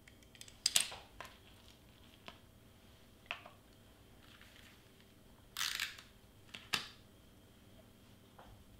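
Cardstock and small craft tools handled on a cutting mat: a series of scattered clicks and taps, with a short rustle a little before six seconds in.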